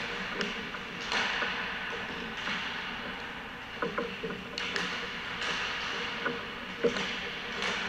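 Ice hockey skates scraping and carving on rink ice in repeated hissing surges, with a few sharp clicks of sticks striking pucks, over a steady low hum.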